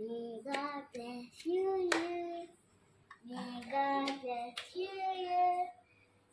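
A voice singing two short phrases with long held notes, broken by three sharp clicks.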